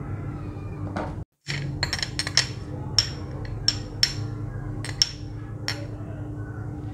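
Spoon clinking and tapping against a small bowl, a dozen or so sharp clinks over about four seconds, as green chili paste is scraped off into a glass mixing bowl.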